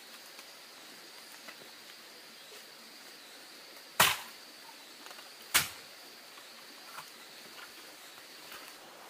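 Two sharp knocks about a second and a half apart, each with a short ringing tail, over a faint steady high-pitched tone that fades out near the end.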